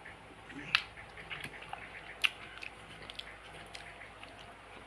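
Quiet chewing and mouth sounds of someone tasting green aloo dum (potato curry), with a few soft clicks, the sharpest about a second in and another just past two seconds.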